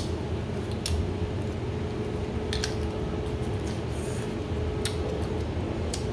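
About four sharp clicks and cracks from a crab meal being eaten by hand, over a steady low hum.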